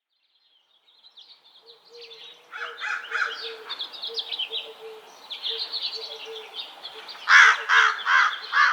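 Birds singing and chirping, fading in after about a second of silence, with four loud calls in quick succession near the end that stand out as the loudest sound.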